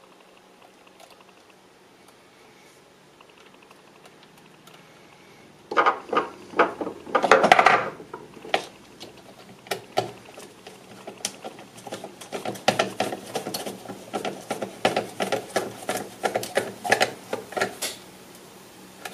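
A small hand tool and hardware clicking, scraping and clattering against a plastic gauge cluster as ground lugs are fastened to its circuit board. It is faint for the first few seconds, then from about six seconds in comes a dense run of sharp clicks and a longer scrape.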